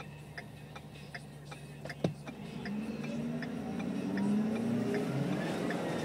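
2011 Ford F-550's 6.7-litre Power Stroke turbodiesel V8 idling with a faint regular ticking, then a sharp click about two seconds in and the engine revs up. Over the revs the turbo's whine climbs steadily in pitch. The turbo has a chunk out of one of its fins, which the owner takes for a turbo getting ready to blow up.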